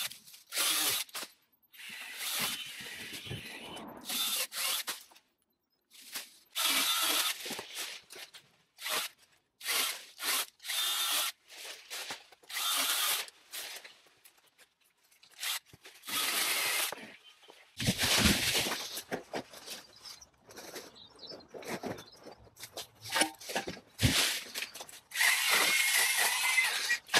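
Kress cordless power tool cutting through overgrown shrub and hedge branches in repeated short bursts, each starting and stopping abruptly, with brief pauses between cuts.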